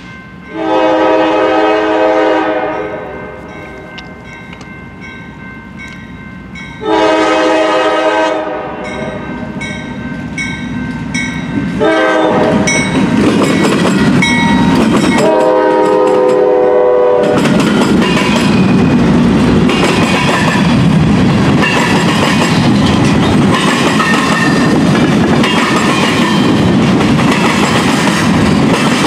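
Norfolk Southern freight train's GE diesel locomotive sounding its horn in the grade-crossing pattern: long, long, short, long. Then the locomotive passes close by and the freight cars roll past with a steady rumble and the clickety-clack of wheels on the rails.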